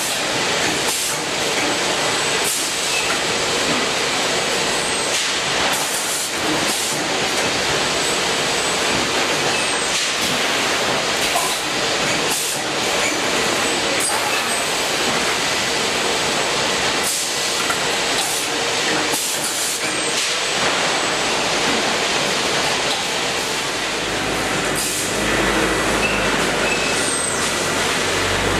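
Automatic bagging and palletising line running: steady mechanical noise from conveyors and machinery, with scattered short knocks. A low hum joins near the end.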